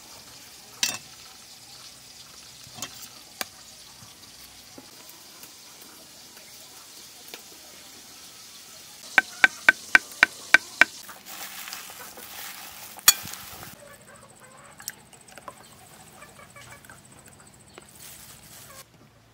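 A kitchen knife cutting avocado on a wooden chopping board: a few single cuts, then a quick run of about eight sharp chopping strikes about nine seconds in, with scraping and handling noises between.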